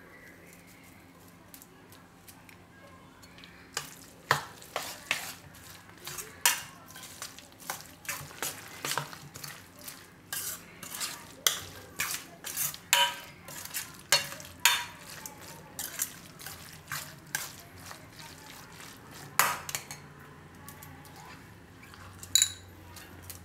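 A steel spoon stirring a thick eggplant mash in a stainless steel bowl. Short scraping knocks of metal on metal come at an uneven pace of one to two a second, starting about four seconds in, with a single ringing clink near the end.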